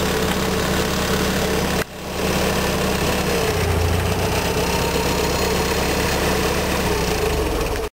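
The propane engine of a 1972 Hyster H50F forklift running steadily as the forklift drives, with a brief dip just under two seconds in. It cuts off abruptly at the end.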